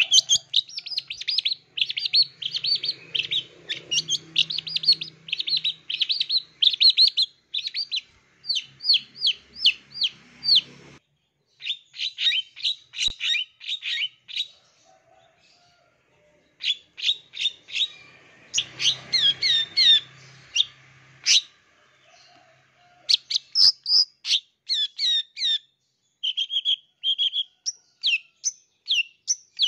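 Long-tailed shrike singing a fast, chattering song of mimicked phrases in rapid runs of short high notes, with a break of a couple of seconds about halfway through.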